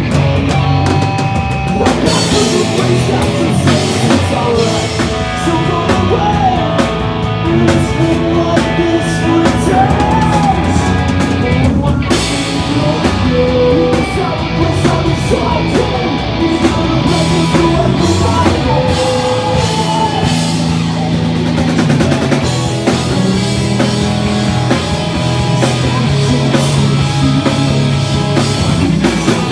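A pop punk band playing live: drum kit, distorted electric guitars and singing, loud and continuous.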